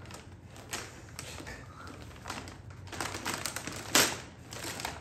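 Gift wrapping paper crinkling and tearing as a present is unwrapped by hand: a run of sharp crackles, the loudest about four seconds in.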